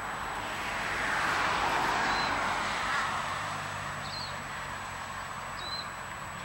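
Outdoor field ambience: a steady rushing noise that swells about a second in and then eases, a low hum from about halfway, and a few brief high bird chirps.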